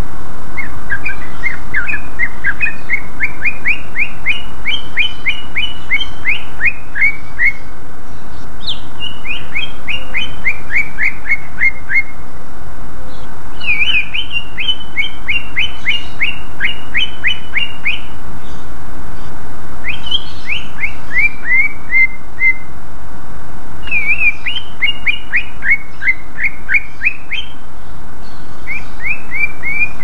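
Cucak ijo (greater green leafbird) singing in full voice: about six phrases of rapid, sharp whistled notes, each phrase a few seconds long, with short pauses between.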